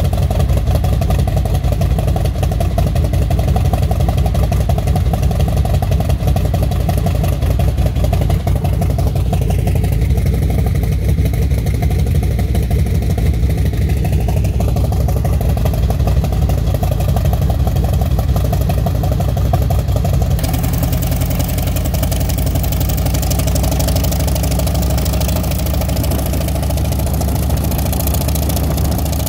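Mi-1M helicopter's seven-cylinder radial piston engine running steadily and loudly. About twenty seconds in the sound shifts abruptly, with more hiss coming in.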